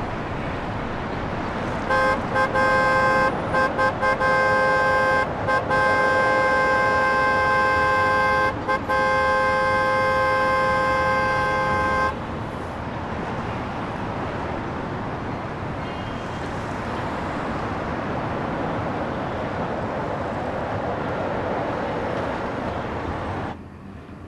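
A car horn honking amid street traffic noise: a few short toots about two seconds in, then long held blasts with brief breaks for about ten seconds, after which only the traffic noise goes on.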